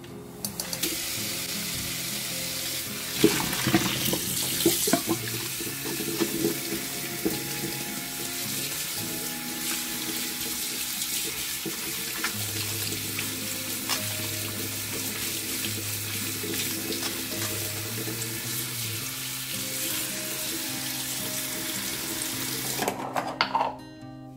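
Kitchen tap running into a stainless steel sink as blanched spinach is rinsed in a mesh strainer, a steady splashing hiss that starts about a second in and stops near the end. Soft background music plays underneath.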